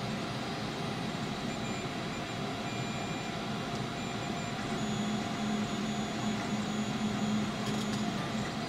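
Tevo Michelangelo 3D printer running a print: a steady fan hiss with short motor tones that come and go as the print head and bed move. A stronger low hum joins about five seconds in and stops shortly before the end.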